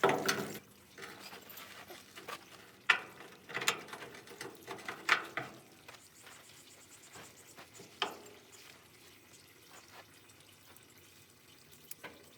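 Scattered clinks and knocks of hand tools and metal parts being handled during a steering cylinder seal repair. There are about half a dozen, loudest about three and five seconds in, with quiet gaps between.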